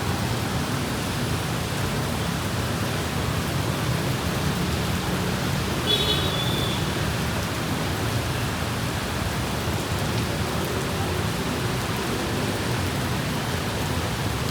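Steady rain falling, an even rushing hiss. A brief high-pitched chirp sounds once about six seconds in.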